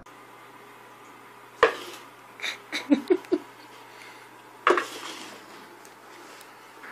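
Plastic cup knocking and clattering on a hardwood floor as a cat pushes it around with its head inside: a sharp knock about a second and a half in, a quick run of smaller knocks just after, and another sharp knock near five seconds.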